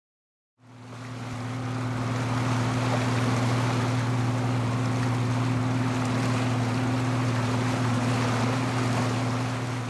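A boat's engine running with a steady low drone, over a constant wash of water and wind noise. The sound fades in over the first second or so and starts to fade out near the end.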